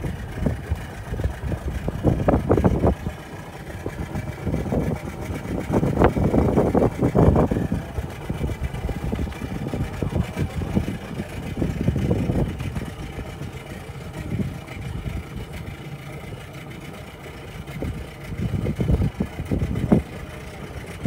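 Wind buffeting the microphone in irregular gusts over open water, over a low, steady rumble.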